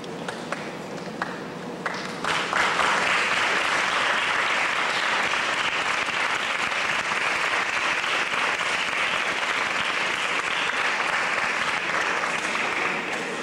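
Audience applauding: a few scattered claps at first, then full applause swells about two seconds in and holds steady, easing off near the end.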